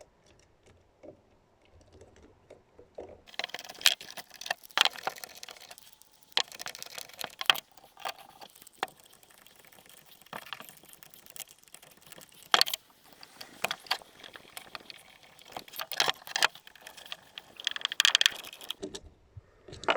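Screws being turned by hand with a screwdriver into the housing of a Ryobi impact driver, with the parts handled. Irregular small clicks, ticks and scraping start about three seconds in.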